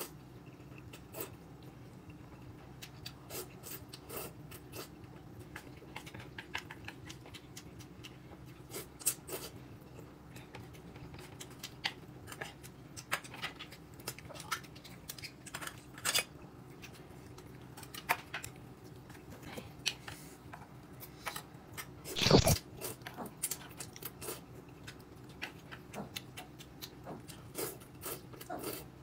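Someone eating at a table: irregular chewing and small clicks of utensils, with one louder clatter about 22 seconds in, over a steady low hum.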